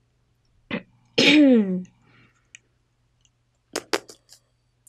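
A person clearing their throat: a short burst, then a loud breathy voiced sound falling in pitch, about a second in. Near the end come four or five sharp clicks in quick succession.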